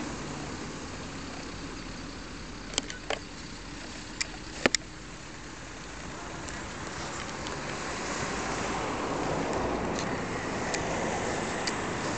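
A car driving past on a nearby road, its tyre and engine noise swelling over several seconds in the second half. A few sharp clicks sound in the first half.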